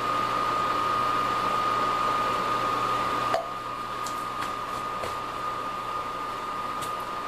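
Little Giant VCM-15UL condensate pump's motor running with a steady hum as it pumps water out of its basin, then stopping with a small click about three seconds in, the basin pumped down. A steady high tone carries on throughout.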